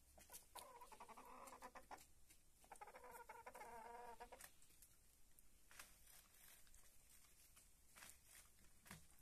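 Domestic hens making two drawn-out, trilling calls one after the other, then a few sharp taps as they peck.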